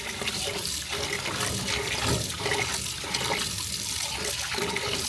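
Steady rush of running water, like a tap running into a sink.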